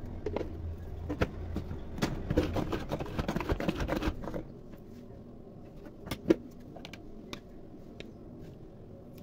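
Hand-pulled string vegetable chopper being worked in quick pulls, its blades spinning and rattling inside the plastic bowl as they chop coriander and onion, for about four seconds. Then it stops, and two sharp plastic knocks follow about six seconds in.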